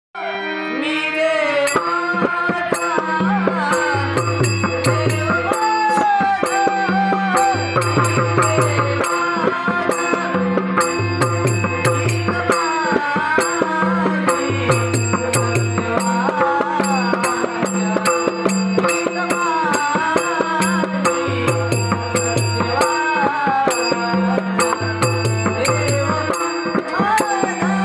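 A male voice singing a devotional langar bhajan with melismatic, wavering lines, accompanied by a pakhawaj barrel drum playing a steady rhythm of deep bass strokes, over a held drone, with regular high metallic clicks.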